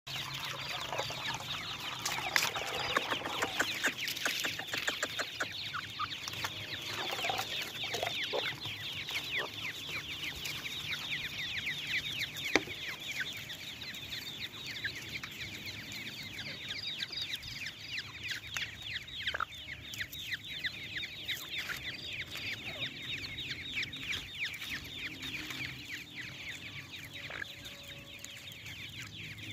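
A brood of grey francolin chicks peeping continuously, many short falling peeps overlapping, with a few lower notes mixed in. A single sharp tap sounds near the middle.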